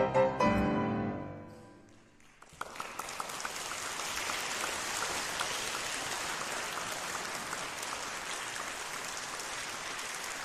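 Closing piano chords ring out and fade away over about two seconds. Then audience applause starts about two and a half seconds in and keeps up steadily.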